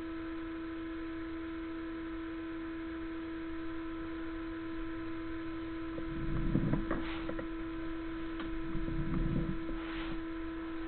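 Steady electrical mains hum on a sewer inspection camera's audio. About six seconds in, and again near nine seconds, it is joined by a few low rumbles and clicks as the camera is pushed through the drain line.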